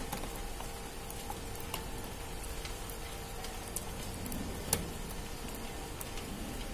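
Honeycomb (flat wire) metal belt conveyor running: a steady motor hum under irregular light metallic clicks from the belt's cross rods and strips, with one sharper click about two-thirds of the way in.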